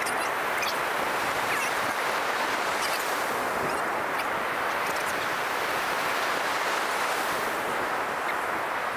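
Ocean surf washing steadily onto the beach, with wind noise on the microphone.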